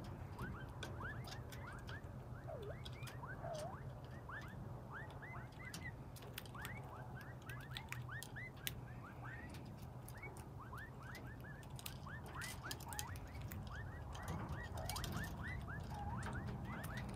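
A flock of young Mearns (Montezuma) quail hens giving soft, short rising peeps, many in quick succession, with scattered light clicks of beaks pecking seed from a hand.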